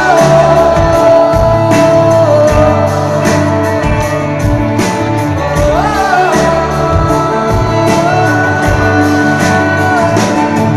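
Live band playing: a singer holds long notes over acoustic guitar, bass and a steady drum beat, sliding up to a new note about six seconds in.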